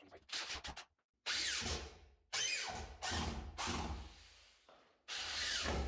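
Corded electric drill driving screws into wood. A couple of short trigger blips come first, then three longer runs, the motor's pitch falling during each run.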